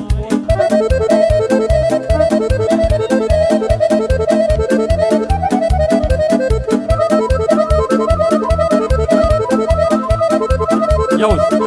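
Instrumental break of Romanian party music, with an accordion leading the melody over a quick, steady beat and bass.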